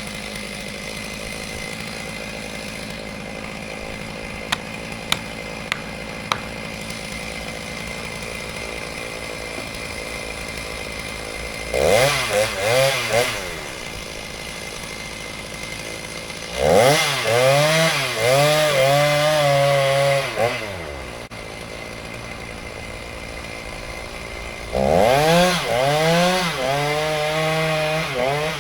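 Two-stroke chainsaw idling, with a few sharp clicks, then revved up three times in bursts of a few seconds each, the pitch rising and sagging under load as it cuts wood.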